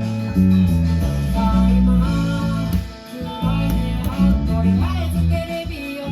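Rock band music with a prominent electric bass line playing under guitar, dipping briefly about three seconds in.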